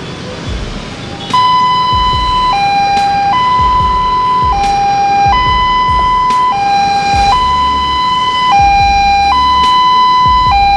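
Two-tone hi-lo emergency siren switched on about a second in. It alternates between a higher tone held about a second and a lower tone held a little less, repeating steadily and loudly, with a low rumble underneath.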